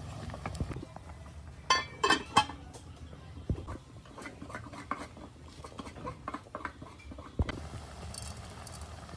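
Metal cooking pot and its lid clinking as they are handled: a cluster of sharp metallic clinks about two seconds in, then scattered lighter knocks.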